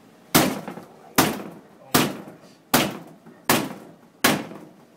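A wine bottle's base struck repeatedly against a wall to knock the cork out without a corkscrew: six sharp knocks, about one every three-quarters of a second, each with a brief ringing decay.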